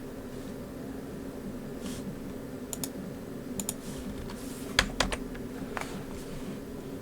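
Scattered clicks of a computer keyboard and mouse, a few sharper clicks about five seconds in, over a steady low hum.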